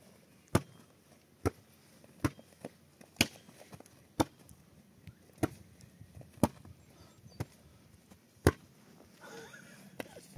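A volleyball being hit back and forth with bare hands: sharp slaps about once a second, nine in all.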